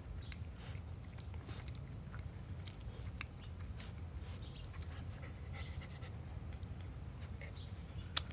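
Husky puppy panting and sniffing up close, faint, with scattered small clicks over a low steady rumble.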